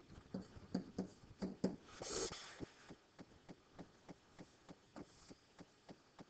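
Faint, light clicking at a regular pace of about three to four clicks a second, with a short rustle about two seconds in.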